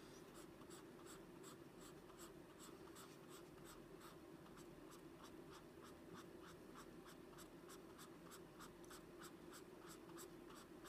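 Paper blending stump rubbing on cardstock in faint, quick, even back-and-forth strokes, several a second, blending colored-pencil pigment and smoothing the seams between colors.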